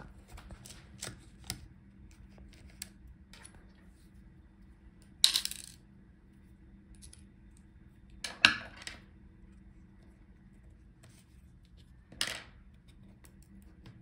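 Light metallic ticks of a screwdriver working the tiny Phillips screws on a laptop motherboard, with three sharper clinks of a small metal screw or tool against the metal chassis, spread through the stretch.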